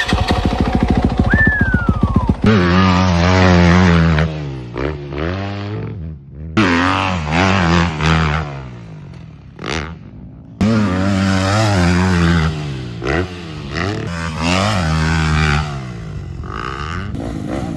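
Motorcycle engine running fast at first, then revved up and let back down about nine times in a row, its pitch rising and falling with each blip of the throttle.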